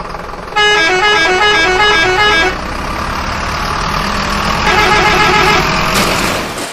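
Truck engine sound effect running steadily, with a loud musical horn playing a quick stepping tune for about two seconds early in, and a second, shorter horn passage around five seconds in.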